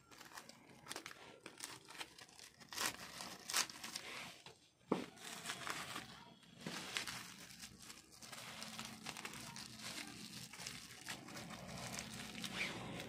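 Packaging being crinkled, rustled and torn open by hand in irregular bursts, with a sharp click about five seconds in.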